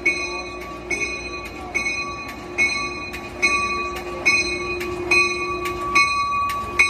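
Diesel passenger locomotive's bell ringing at a steady pace, a little more than one strike a second, as the train departs, with the locomotive's engine drone underneath.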